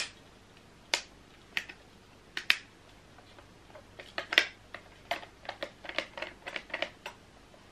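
Scissors snipping and clicking at a hard plastic toucan toy: a string of sharp clicks, a few spaced apart at first, then a quicker run of them over the last few seconds.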